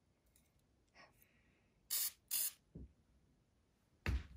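Hand spray bottle misting water onto watercolor paper to wet it: two quick squirts about two seconds in. Near the end there is a short thump.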